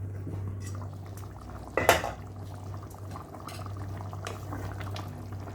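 A pot of chicken and squash stew simmering and bubbling, over a steady low hum, with one sharp metallic clink about two seconds in.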